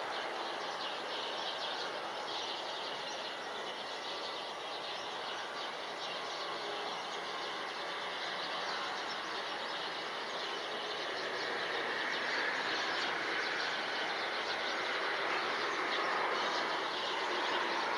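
Steady distant outdoor background noise, a wide hiss-like rumble of the kind heard over a city, swelling a little about two-thirds of the way through, with faint high chirps.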